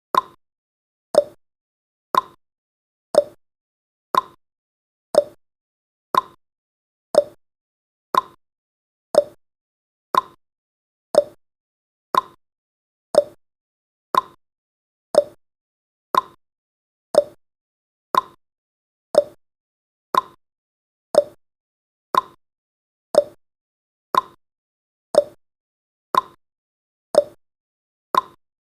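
Countdown timer's ticking sound effect: a short, sharp click once every second, evenly paced.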